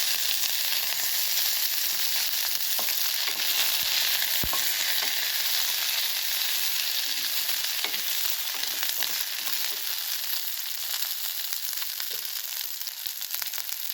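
Curry leaves, mustard seeds, chillies and crushed garlic sizzling in hot oil as a tempering for black chana sundal: a steady frying hiss with scattered small pops, easing a little toward the end.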